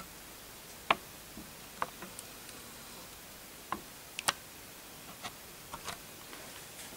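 About a dozen short, sharp clicks at irregular intervals over a faint steady hiss, the loudest about a second in.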